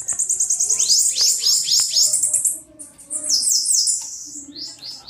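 Bananaquit singing: high, rapid trills of quick downward-sweeping notes, in a few bursts with short breaks between them.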